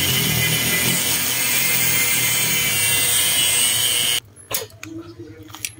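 Angle grinder running against a CV axle shaft, a loud, steady high-pitched grinding. It cuts off abruptly about four seconds in, followed by a few light clicks and clinks.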